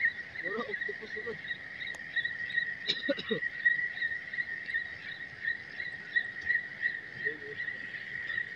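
Steady high-pitched trilling chorus of calling animals, insects or frogs, pulsing quickly without a break.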